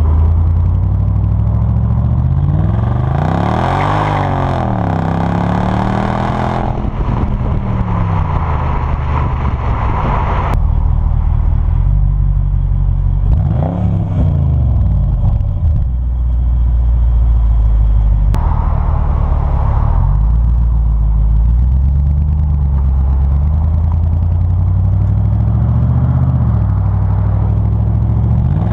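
Mercedes SL55 AMG's supercharged 5.4-litre V8, heard right at the tailpipe with the resonators deleted, running under way and rising and falling in revs several times. There is a long climb and drop a few seconds in, a quick blip about halfway, and gentler swells near the end.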